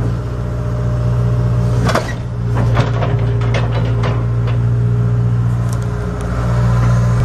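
Tracked excavator's diesel engine running steadily under load as the machine turns. Sharp metal clanks and squeaks from the steel tracks and undercarriage about two seconds in and again a few times after.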